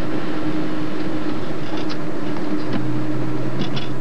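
Car engine and road noise heard from inside the moving car's cabin, a steady hum whose pitch steps down about two-thirds of the way through.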